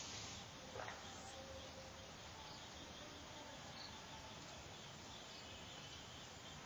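Faint steady background hiss, close to silence, with one faint click about a second in.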